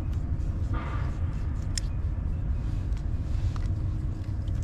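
A steady low rumble, with a few sharp clicks near the middle as cigars are lit with lighters and drawn on.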